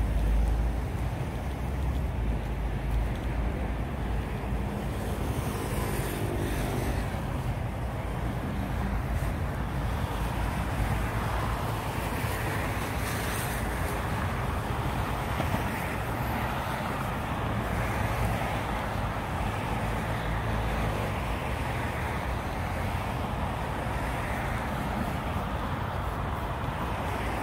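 Steady city road traffic: a continuous wash of cars and other vehicles passing, with one engine's hum standing out briefly about five seconds in.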